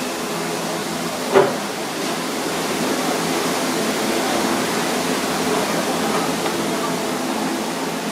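Steady rushing kitchen background noise, with one sharp clink about a second and a half in.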